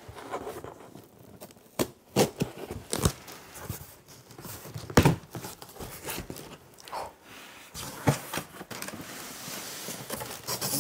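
Scissors cutting packing tape on a large cardboard box, with irregular sharp rips and snaps of tape and cardboard flaps as the box is opened, the loudest about halfway through. Near the end, a steadier rustle of packing paper.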